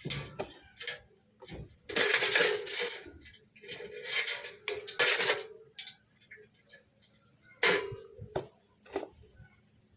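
Metal gearbox parts clinking and scraping as they are handled and fitted, with a few sharp knocks that ring briefly.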